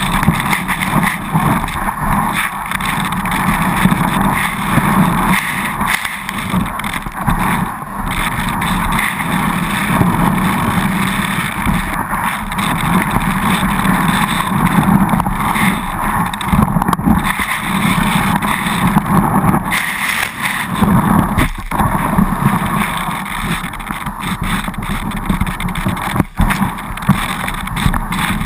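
Skis sliding and scraping over packed snow at speed, mixed with wind rushing over the GoPro Hero2 camera mounted at ski level: a loud, steady rush of noise that swells and eases as the skier turns.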